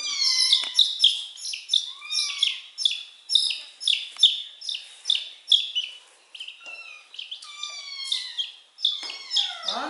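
Baby chick peeping over and over, short high-pitched calls that mostly fall in pitch, about two a second, the loud, insistent peeping of a chick in distress while being held and handled.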